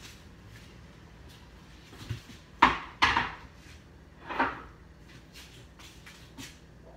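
Cookware being handled in a kitchen: light clicks and knocks, with three louder clanks around the middle.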